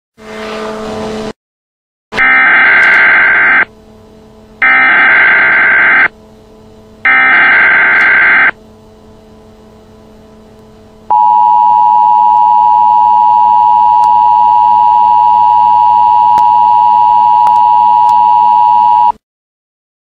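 Emergency Alert System tones for a tornado warning: a brief buzz, then three bursts of the SAME digital header, each about a second and a half long with about a second between. Then the steady two-tone EAS attention signal, held for about eight seconds before it cuts off.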